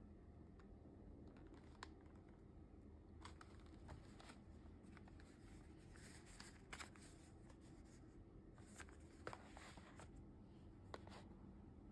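Faint rustling and scattered light taps of cardboard tea boxes being handled, over a low steady room hum.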